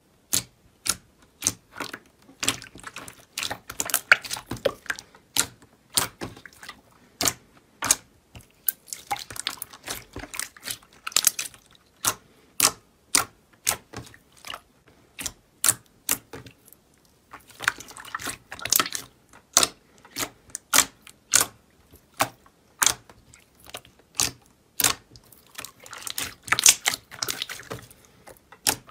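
Glossy green slime pressed and squeezed by fingers, giving sharp wet clicks and pops at an irregular pace of one or two a second, with stretches of denser crackling in between.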